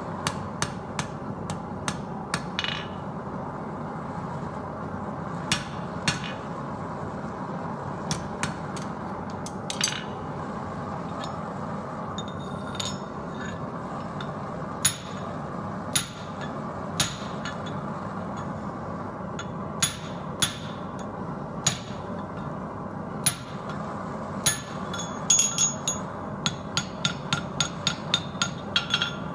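Hand hammer striking steel on an anvil, irregular single blows with a bright ringing note, then a quicker run of blows at about two a second near the end, over a steady rushing background noise.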